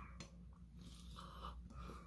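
Faint eating sounds: soft chewing, and crispy bacon handled as a strip is picked up from the plate.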